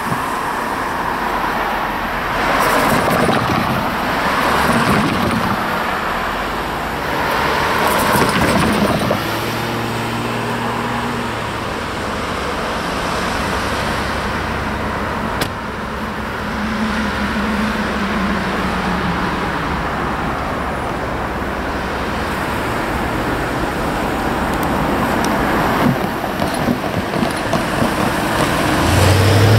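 CSX freight train approaching, its lead diesel locomotive's engine running as a steady low rumble under a wash of rail and wheel noise.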